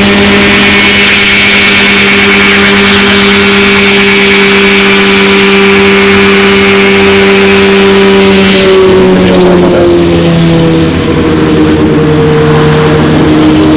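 Mosquito XE ultralight helicopter's two-stroke engine and rotors running loud and steady in a low hover. About nine seconds in the pitch drops and stays lower as the helicopter sets down on its skids.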